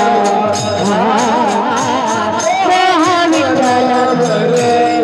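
Devotional kirtan music: held melody tones under a voice singing a wavering, ornamented wordless line, with drum and small cymbal strokes keeping a steady beat of about three a second.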